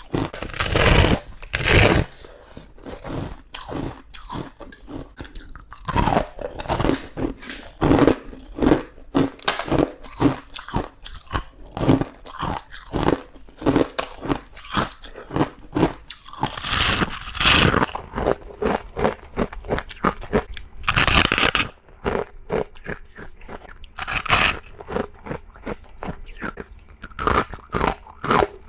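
A person biting and chewing ice: a run of loud, sharp crunches that come faster in the later part.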